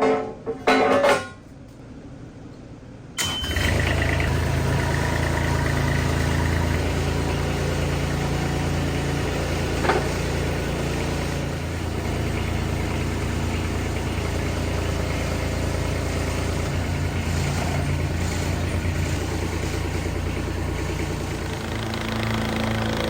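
Skid steer engine starting abruptly about three seconds in and then running steadily, after a few short loud knocks.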